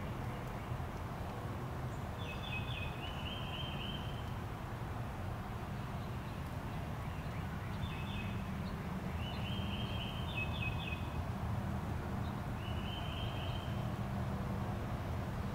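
A songbird singing short trilled phrases, about five times, over a steady low background rumble.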